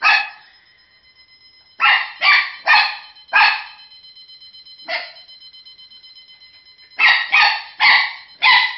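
Dog barking at a beeping electronic alarm clock: one bark at the start, four quick barks about two to three and a half seconds in, a softer one near five seconds, and four more near the end. The alarm beeps on underneath as a steady, rapidly pulsing high tone.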